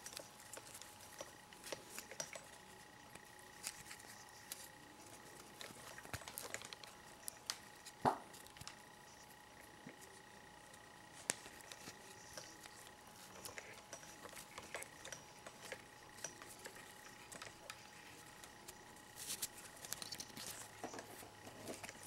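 Faint rustling and scattered small clicks of hands pulling nylon paracord tight around a plastic side-release buckle, with a sharper click about eight seconds in.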